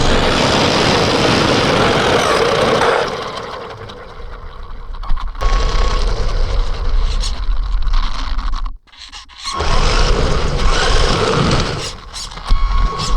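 Electric RC truck being driven fast, a steady motor whine over the rumble and scrape of its tyres on the ground. The noise eases off about three seconds in, then surges again, with a brief drop near the middle and another near the end as it slows and speeds up.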